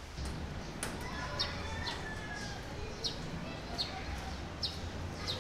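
Outdoor street ambience: a small bird chirping repeatedly, about six short falling chirps a bit under a second apart, over a steady low hum.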